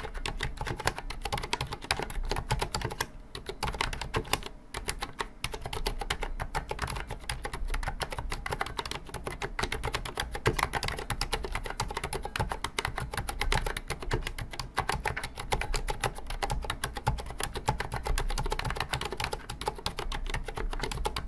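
Continuous typing on a Vortex Cypher US1 mechanical keyboard with Cherry MX Silent Red switches: a dense run of keystrokes, with two short pauses a few seconds in. The reviewer finds the sound flat, with hollow case resonance left in the housing and no solid, weighty feel from the plate.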